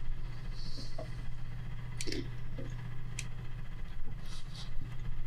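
Faint scattered clicks and light scrapes of a plastic packing tool working thread on a rod blank, over a steady low hum.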